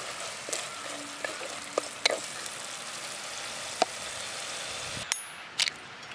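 Onion-tomato masala sizzling in a clay pot as a flat metal spatula stirs it, with a few sharp scrapes and knocks of the spatula against the pot. The sizzle cuts off about five seconds in, followed by a sharp crack of an egg being broken over a steel bowl.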